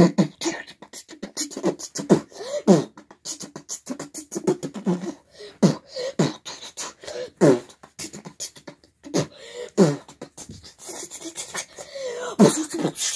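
Mouth beatboxing: a string of clicks, pops and hisses in a loose rhythm, mixed with short sung vocal swoops.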